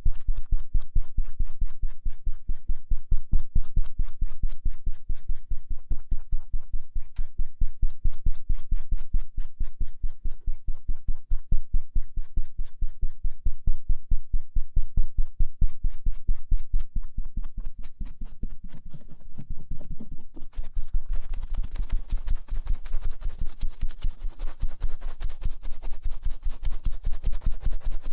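Cotton swab rubbing and scratching over the outer ear of an ASMR ear microphone in quick, evenly repeated strokes. About two-thirds of the way through, the strokes turn into a hissier, more continuous rubbing.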